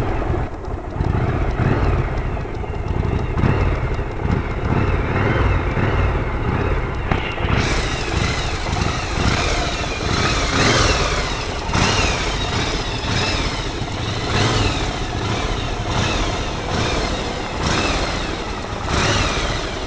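Motorcycle engine running, its pitch rising and falling again and again, about once a second.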